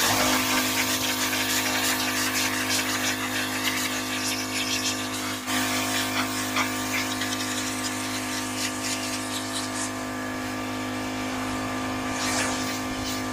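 Pressure washer running steadily, with the high-pressure water jet hissing as it sprays; the spray cuts in abruptly at the outset.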